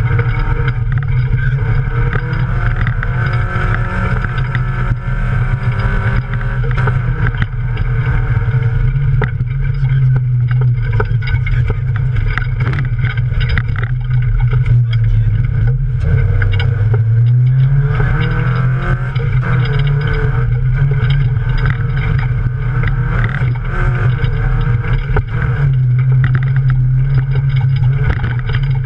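Off-road race car's engine running hard, heard from inside the cabin, its note rising and falling with the revs, with frequent knocks and rattles from the car.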